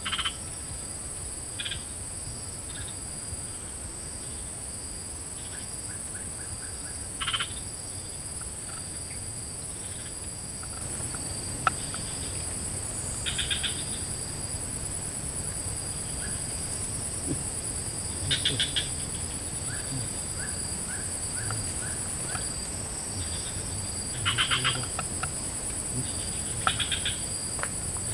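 Swamp wildlife: insects buzz steadily at a high pitch while frogs give short rattling calls every few seconds.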